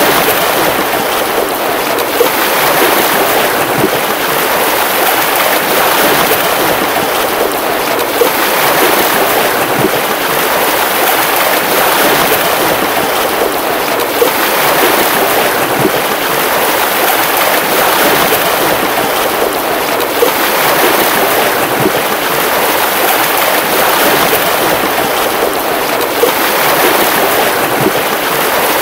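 Rushing water, a dense steady hiss that swells and eases every few seconds, with a small pop about every six seconds.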